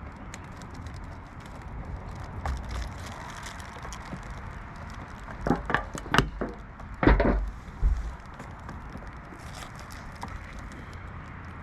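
A handful of knocks and clunks of hands working on the RV roof, most likely the new skylight frame being handled and set into its opening. They come close together over about three seconds in the middle, over steady low background noise.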